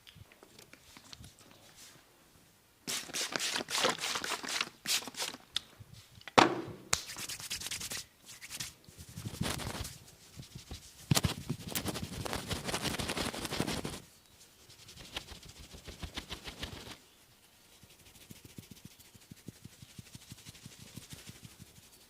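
Hands working a massage on bare skin: bursts of rapid rubbing and tapping strokes, with one sharper smack about six seconds in, then lighter quick tapping near the end.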